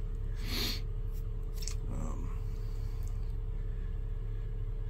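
Steady low electrical-type hum of a small room, with one short breathy snort or sniff about half a second in and a couple of faint clicks.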